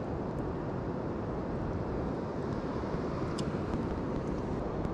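Steady outdoor noise of wind and surf on an ocean pier, an even rumble and hiss with no distinct events.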